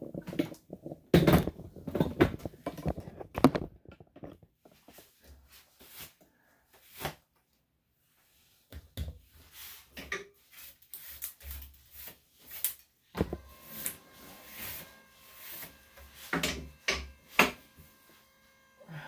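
Handling noises: a quick run of knocks and thumps in the first few seconds, then scattered clicks, taps and rustling. About two-thirds of the way through a faint steady hum starts and runs under the further knocks.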